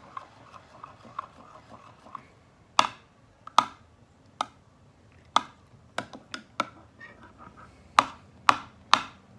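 A utensil stirring thick glue in a glass baking dish: faint soft ticks at first, then from about two and a half seconds in, about ten sharp, irregularly spaced clicks and taps as it knocks against the glass and works through the sticky mixture.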